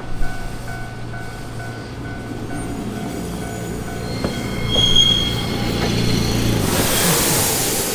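Hankai Line streetcar running over a level crossing: a low motor hum, high wheel squeals about four to five seconds in, then a loud rush of wheel-on-rail noise from about seven seconds in as the tram passes close. A crossing warning bell rings steadily underneath.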